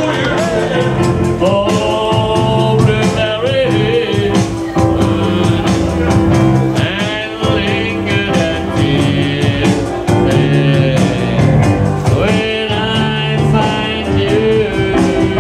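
Live band playing a song: a singer with wavering, held notes over instruments and a steady beat.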